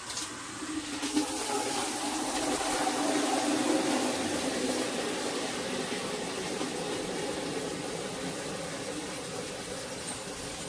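Water running from a tap into a container: a steady, rushing splash.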